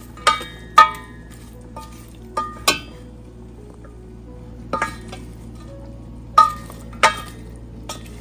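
Wooden spoon stirring minced duck laab in a metal pot, knocking against the pot's side in about eight irregular, ringing clinks.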